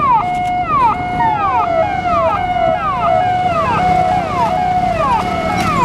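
Ambulance's electronic siren sounding a repeating cycle, a held tone followed by a falling sweep, about three cycles every two seconds. A second, out-of-step copy of the same pattern overlaps through the middle.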